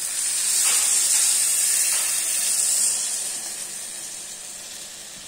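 Tamarind water poured into a hot pan of shallots frying in sesame oil: a loud sizzling hiss as the liquid hits the oil, dying down over the last couple of seconds as the pan settles.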